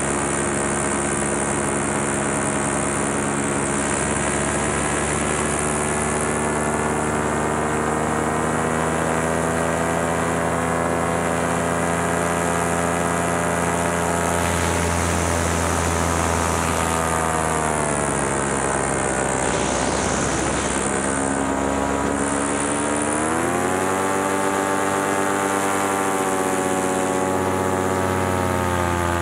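Paramotor engine and propeller running steadily in flight. Just past halfway the throttle is eased back and the pitch falls for a few seconds, then the throttle is opened up again and the pitch climbs back.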